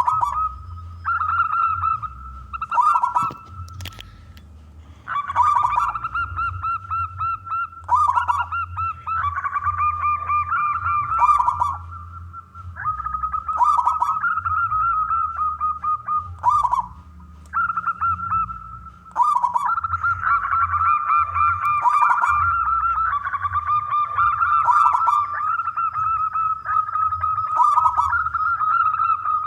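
Zebra dove (perkutut) cooing: repeated rolling, rapidly pulsed phrases of a few seconds each with short pauses, two voices overlapping in places.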